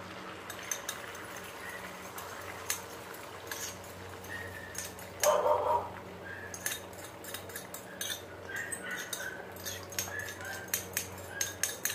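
Light clinks and taps of a utensil and bowl against a nonstick frying pan as beaten egg is poured and spread into an omelette, scattered short ticks over a low steady hum, with one brief louder sound about halfway through.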